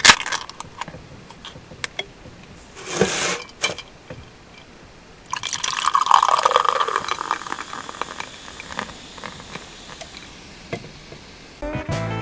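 A can of Suntory The Premium Malt's beer cracks open at the start, and there is a short hiss about three seconds in. From about five seconds the beer is poured into a glass with a falling tone, then a heavy head of foam fizzes as it settles. The foam comes from pouring too hard.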